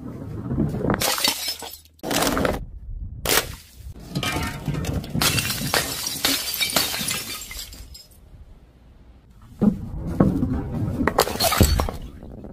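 Glass jars and bottles smashing one after another on a hard floor: several separate crashes, some short, some drawn out with shards scattering, and a quieter gap of about a second and a half before the last ones.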